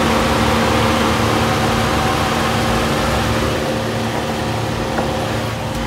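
Nissan Caravan idling with the air conditioning running on a fresh refrigerant charge: a steady hum of engine and condenser fan with a constant low tone.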